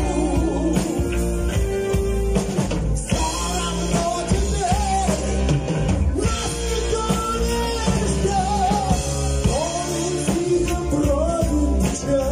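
Live rock band playing: a male lead vocal sung over electric bass, electric guitar, keyboards and drums.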